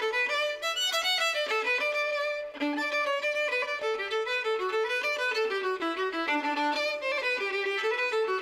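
Background music: a lively Celtic fiddle tune, a quick melody of short notes stepping up and down.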